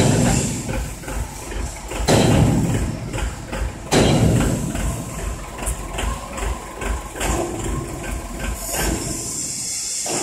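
Heavy-machinery workshop noise: a steady low machine hum with many small knocks and clatters, and loud bangs at the start, about two seconds in and about four seconds in.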